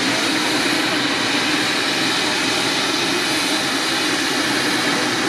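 Ornge medevac helicopter running close by: a loud, steady rush of turbine and rotor noise with a faint high whine.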